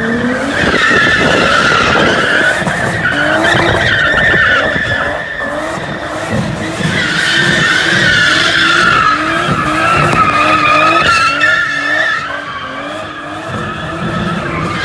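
Tyres screeching in a long, continuous drift while the RB-swapped 1997 Nissan S14 Kouki's straight-six revs up and down over and over. The screech dips about six seconds in and again near the end.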